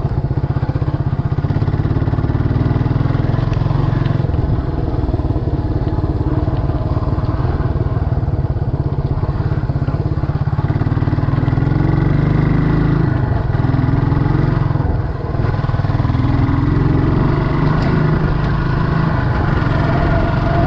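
Scrambler motorcycle's engine running under way on a dirt road, its pitch rising and falling with the throttle, with a brief drop in level about fifteen seconds in.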